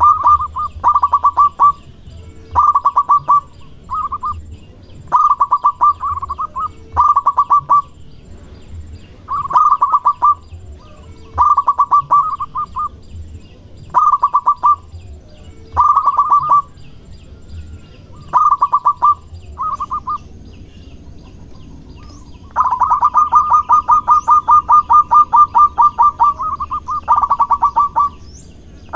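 Zebra dove (perkutut) cooing loudly in short bursts of fast rolling notes every one to two seconds. After a pause of about three seconds, a long unbroken run lasting about four seconds follows near the end.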